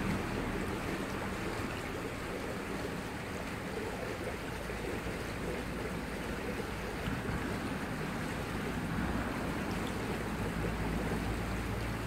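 Steady rush of a small river's running water, with a low rumble underneath.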